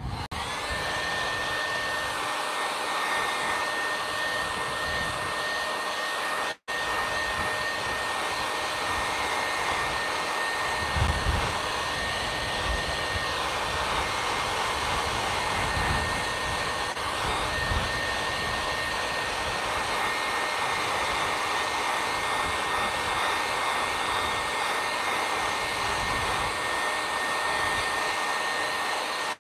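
Conair handheld hair dryer running steadily, blowing onto fresh spray paint on a stencil canvas, with a thin steady whine over the rush of air. It cuts out for an instant about six and a half seconds in.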